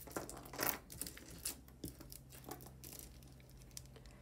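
Faint clicking and rustling of a faux pearl necklace being picked up and handled, the beads knocking together, busiest in the first three seconds and thinning out after.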